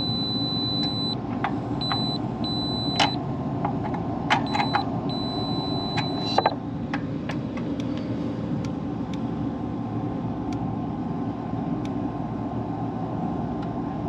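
Electronic beep from a multimeter, sounding on and off in short stretches for about the first six seconds while the test probes touch and leave the unit's terminals, with sharp probe clicks. A steady low rumble runs underneath.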